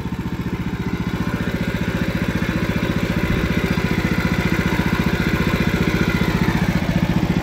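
Portable sawmill's small gasoline engine running steadily, with an even, rapid firing beat.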